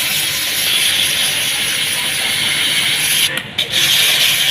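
High-pressure water spray hissing steadily as it is jetted over a window air conditioner during washing. It cuts out briefly about three seconds in, then resumes.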